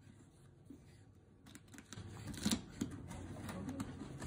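Cardboard carrier box being opened by hand: its tabs scrape and click as they are pulled out of their slots, with rustling of the card. It gets louder about halfway through, with a few sharp clicks.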